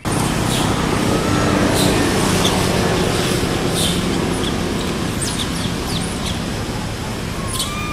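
A motor vehicle's engine runs with a loud, steady rumble that slowly eases, with short high chirps scattered over it.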